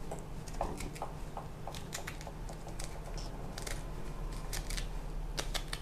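Small knife cutting and prying seeds out of a halved green fruit: irregular crisp clicks and cracks, about three a second, with a cluster of sharper ones near the end.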